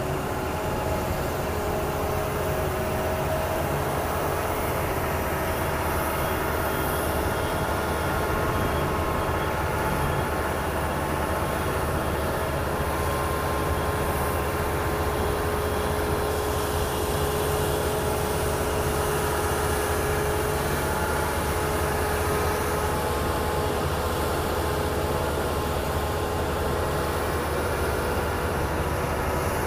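A steady mechanical drone with a low rumble and several held tones, unchanging throughout.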